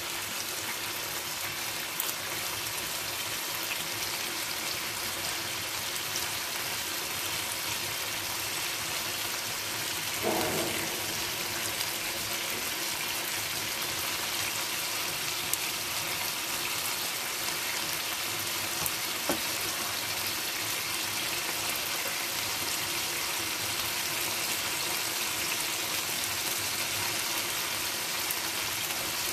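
Chicken pieces sizzling steadily in a frying pan as they cook in a sticky sauce glaze, with a few light clicks and one brief louder sound about ten seconds in.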